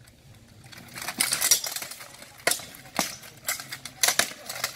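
Steel swords clashing against each other and against plate armour in an armoured fight: a quick run of sharp metallic clanks about a second in, then single clanks with a bright ring about every half second.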